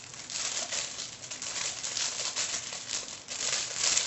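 Packaging crinkling and rustling continuously in irregular bursts as hands struggle to get it open.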